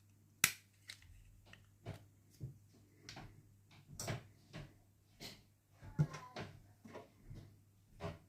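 Irregular small clicks and taps of a Mercedes key fob's plastic casing being handled and opened for a battery change, with a sharp click about half a second in.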